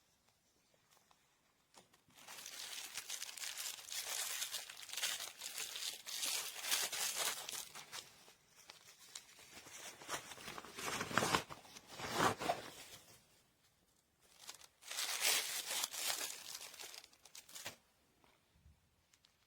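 Crinkly material being handled and crumpled close by, in three long stretches of rustling, the middle one ending in a few louder crackles.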